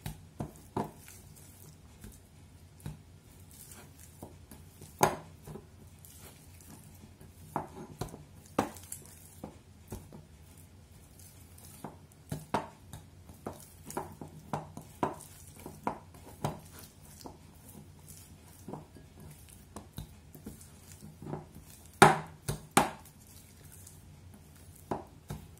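Hands kneading spring onion dough in a glass mixing bowl on a wooden cutting board: irregular taps and knocks of dough, fingers and bowl, with a few louder knocks about five seconds in and twice near twenty-two seconds.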